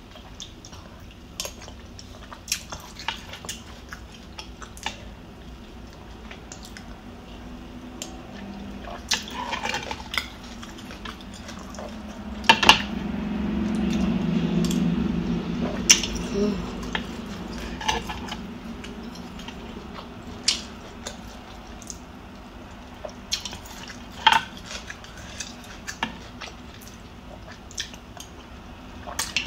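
Metal spoon clinking and scraping against a ceramic soup bowl, with close-miked eating sounds from spoonfuls of pho broth and beef. There is a louder stretch of a few seconds around the middle as a spoonful is taken to the mouth.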